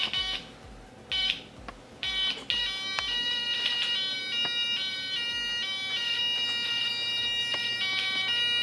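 Homemade two-tone British police siren circuit sounding its shrill electronic tone. It cuts in and out for the first couple of seconds, then sounds steadily, alternating between a higher and a lower pitch.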